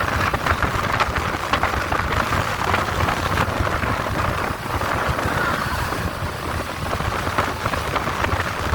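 Wind buffeting the microphone on a speedboat under way, over the boat's steady engine and water noise.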